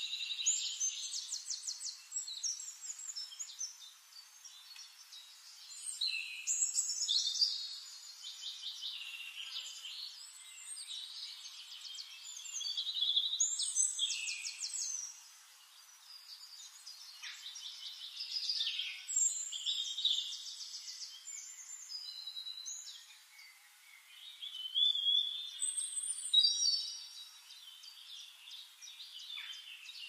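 Songbirds singing: bursts of fast, repeated high notes every few seconds, some phrases overlapping.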